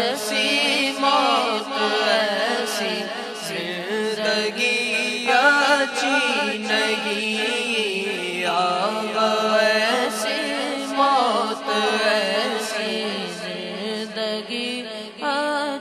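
Naat sung by young male voices into microphones: a long, ornamented melodic line that wavers and glides in pitch, held over a steady low drone.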